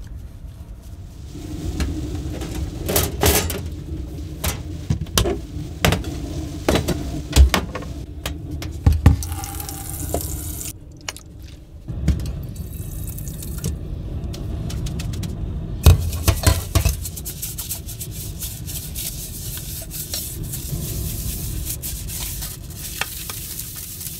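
Dishes washed by hand in a stainless steel sink: a steel saucepan and a glass bowl knock and clink against the sink among splashing water, and a dish brush scrubs. The sharp clinks come in clusters, most of them in the first half.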